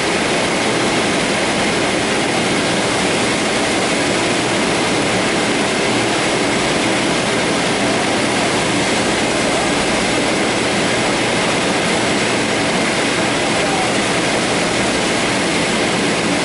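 Höfler Rapid 800 gear grinding machine running steadily while grinding the teeth of a double helical gear shaft: an even, unbroken machine noise with a faint steady whine.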